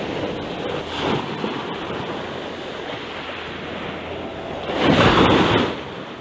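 Surf surging and washing over shoreline boulders in a continuous rush, with a small surge about a second in and a louder wave breaking about five seconds in.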